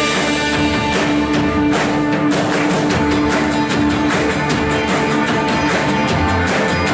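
Live worship band playing an instrumental passage: guitar and held chords over a steady beat, with no singing.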